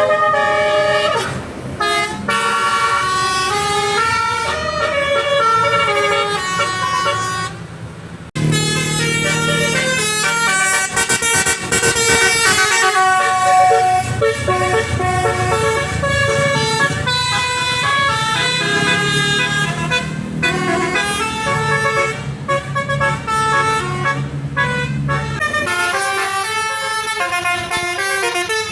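Indonesian bus 'telolet basuri' multi-tone horns playing quick melodic tunes of stepped, pitched notes. The tune breaks off briefly about eight seconds in and starts again with a low engine rumble beneath it, which stops a few seconds before the end while the horn tunes go on.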